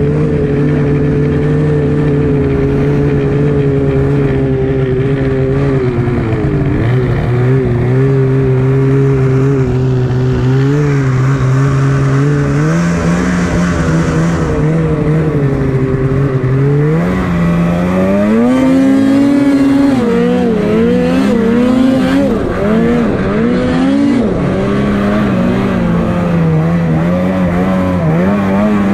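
Snowmobile engine running at a steady pitch, shifting up briefly about midway, then revving up and down with the throttle through the second half.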